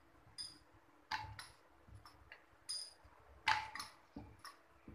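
Rolling pin working paratha dough on a round metal rolling board, giving irregular light clicks and clacks with a short metallic ring. A faint steady hum runs underneath.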